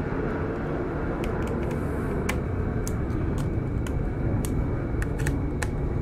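A dozen or so light, sharp clicks and taps of a screwdriver and hands on a laptop's metal back panel as the cover is fitted and screwed down, over a steady low background rumble.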